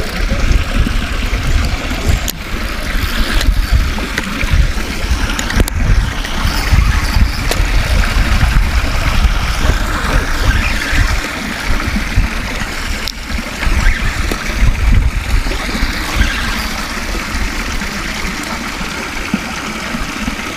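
Wind buffeting an action camera's microphone: a loud, uneven low rumble over a steady rushing hiss, with a few faint clicks as a spinning reel is cranked to retrieve a lure.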